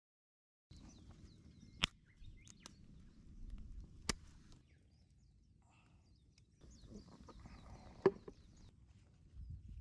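Faint outdoor ambience with small bird chirps, broken by three sharp knocks or clicks, the loudest about eight seconds in.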